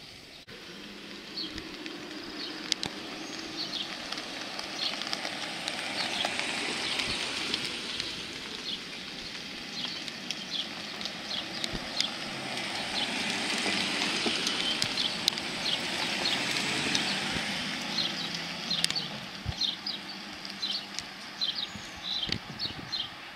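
Camouflaged BMW X5 prototype SUVs driving past one after another, their engine and tyre noise swelling twice and then fading. Birds chirp throughout.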